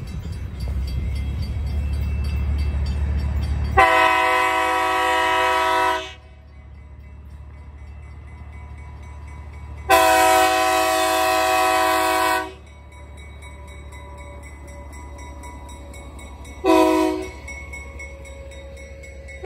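Diesel locomotive's multi-chime air horn sounding the grade-crossing signal: two long blasts, then a short one, with the closing long blast starting at the very end. A low rumble comes before the first blast.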